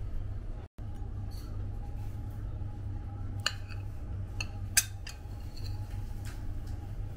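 Metal spoon clinking against a ceramic plate while scooping fried rice: a few sharp clinks between about three and five seconds in, the loudest near five seconds, over a steady low hum.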